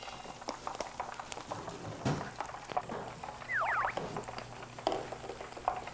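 Scattered light clicks and crackles of cooking work at a kitchen counter, with batter being thickened and frying under way. About three and a half seconds in, a brief whistle slides down and back up.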